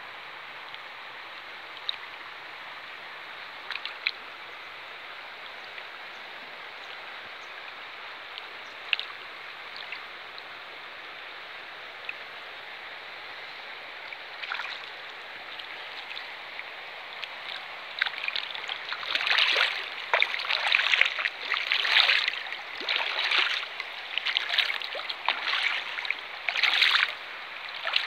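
River water running steadily, with a few faint clicks. About two-thirds of the way through, repeated splashing begins and grows louder as a hooked fish thrashes at the surface.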